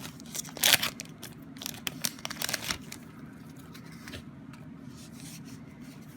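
Foil booster pack wrapper being torn open and crinkled, with a sharp rip under a second in and a few more crinkles over the next two seconds, then only faint rustling.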